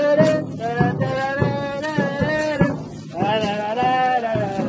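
Music: a sustained, wavering melody line over a steady drum beat of roughly one and a half strokes a second.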